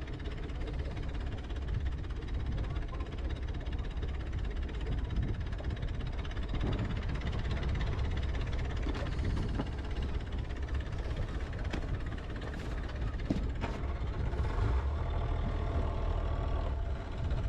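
Sailing yacht's engine idling steadily with a low, even rumble.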